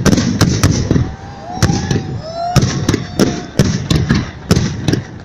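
Victory Day fireworks salute bursting overhead: a rapid string of sharp bangs, several a second, with booming low rumble between them.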